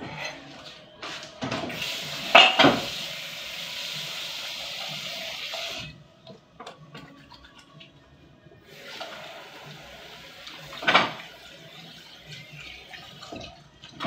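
Kitchen tap running into a sink for about four seconds, then again for a couple of seconds later, with dishes clattering: two sharp clanks early in the first run and one loud clank at the end of the second.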